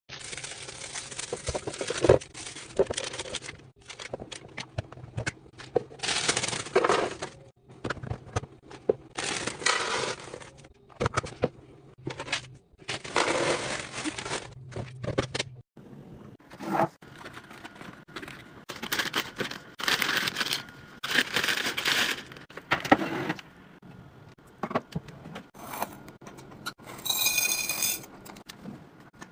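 Dry food being poured into storage containers, in repeated bursts with short pauses: snack mix rattles from a crinkling plastic bag into a plastic canister, then, after about 16 seconds, crispy muesli pours from a box into a tall glass jar.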